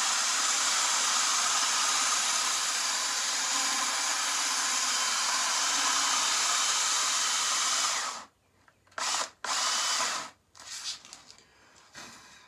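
Cordless drill spinning a wooden ramrod dowel against coarse-grit sandpaper: a steady sanding hiss over the drill's whir. It stops about eight seconds in and restarts twice briefly, the drill's battery dying.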